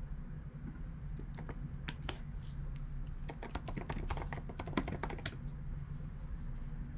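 Typing on a computer keyboard: a few scattered key clicks, then a quick flurry of keystrokes in the middle, over a steady low hum.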